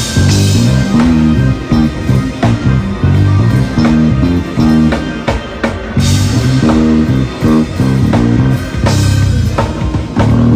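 Electric bass guitar playing a busy, pitched line with a full band and drum kit. Bright cymbal crashes come at the start and again about six seconds in.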